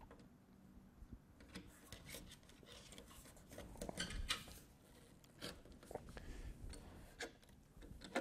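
Faint rubbing and scraping with a few light clicks, as a 3-foot T5 fluorescent light fixture is handled against the grow box panel and fitted into its mounting brackets.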